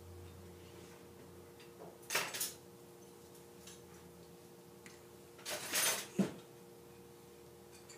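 Newborn baby's short breathy grunts and huffs, in two clusters about two seconds in and again near six seconds, over a faint steady hum.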